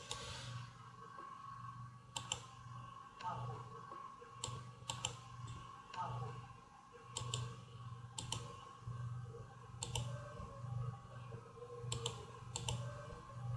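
Computer mouse clicking every second or so, each click a quick press-and-release tick, over a steady low electrical hum.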